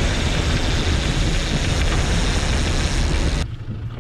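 Outboard-powered boat running at speed: a steady loud rush of engine, water and wind. It cuts off abruptly about three and a half seconds in, leaving a quieter low engine hum.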